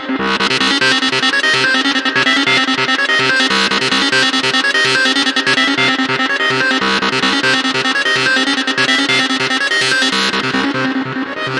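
Goa trance lead synth patch built in Ableton's Operator, playing a fast sequenced line over a pulsing bass line. The top end dips away briefly about a second before the end.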